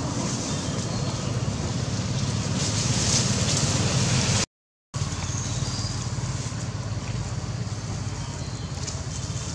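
Steady outdoor background noise, a low rumble with a hiss above it and no distinct events. It cuts out completely for about half a second partway through.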